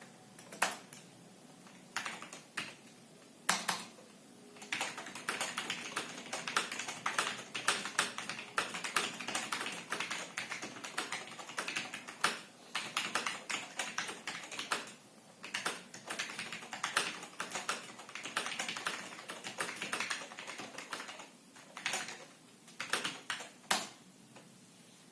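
Typing on a Cherry G81-3000 keyboard whose Cherry MY linear switches have been lubricated with PTFE lube. A few separate key presses come first, then a long run of fast continuous typing, then a few more single presses near the end.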